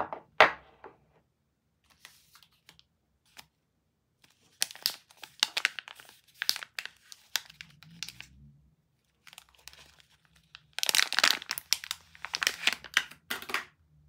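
A bar of soap knocks down onto a wooden table twice at the start. Then the clear plastic film wrapper of a pink-and-white striped EXXE soap bar crinkles and tears in two long spells as the bar is unwrapped.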